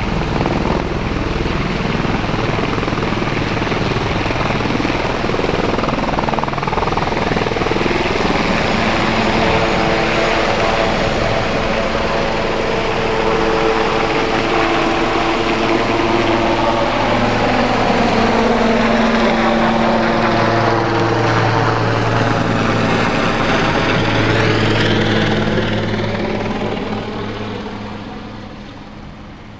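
Helicopter taking off, its rotor and engine running loud and steady with shifting, sweeping tones as it moves. It fades away over the last few seconds.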